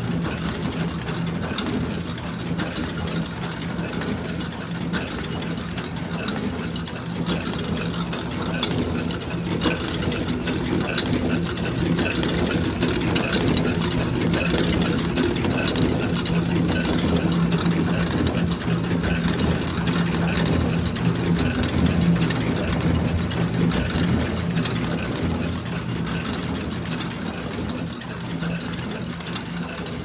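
Antique Coffield electric washing machine running: a steady motor hum with dense, fast mechanical clatter over it.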